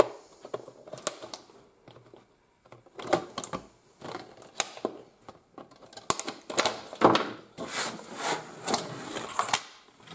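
Side cutters snipping plastic zip ties, a scattered series of sharp clicks and snaps, with cardboard packaging rustling. The clicks come thicker and busier in the second half, as the packaging is handled and the RC truck is freed from its box.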